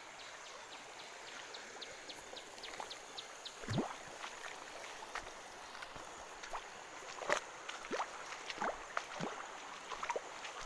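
Shallow rocky river flowing steadily, with irregular splashing footsteps as someone wades through the water, more frequent in the second half. A fast series of faint high ticks, about four or five a second, runs through the first few seconds.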